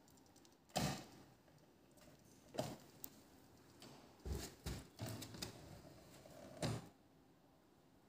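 Light knocks and taps, about six of them spread over several seconds, the loudest about a second in: a toy car and a cardboard garage model being handled.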